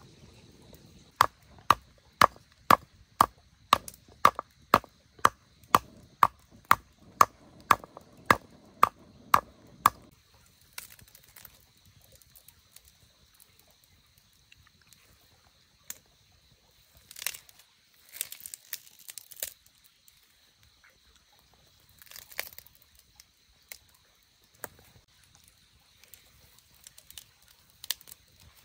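Steady chopping with a blade, about two blows a second for roughly nine seconds, each blow with a short ring. Then it stops, and only scattered light knocks and rustling follow.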